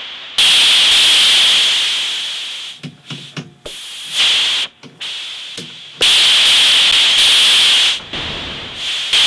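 Noise generator of an ARP 2600-type synthesizer, played from the keyboard: three or four bursts of hiss that start suddenly and fade over a second or two, the longest cutting off about eight seconds in. Between them come a few short pitched blips and a brief high whistle as the panel sliders are moved.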